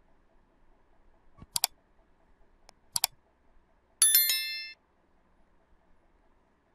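Like-and-subscribe animation sound effects: two mouse clicks, each a quick double tick, about a second and a half apart, then a bright bell ding with several ringing tones as the notification bell is clicked, fading out in under a second.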